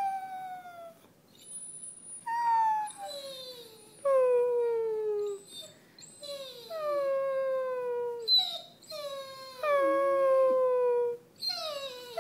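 Basset hound howling and whining in a series of drawn-out, high cries, each sliding down in pitch, one every second or two.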